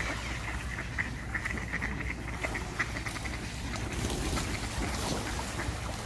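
A flock of mallard ducks quacking on a pond, with a quick run of short repeated calls in the first half.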